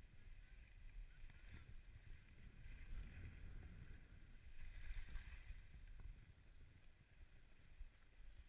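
Faint rumble of wind on the microphone with the hiss of a rider sliding down packed snow, the hiss swelling a couple of times as the rider turns.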